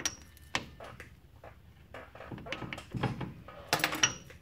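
Light metal clicks and knocks of parts being handled inside an open rear axle differential, with two short, high metallic pings, one at the start and one about four seconds in.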